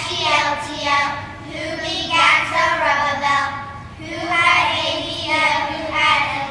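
A group of young children singing together in phrases of a couple of seconds each.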